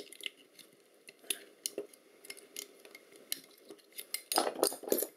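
Small metal tools, a thin screwdriver tip and a knife blade, clicking and scraping against metal discs and an aluminium housing while prying parts loose, with a louder scrape lasting about half a second near the end.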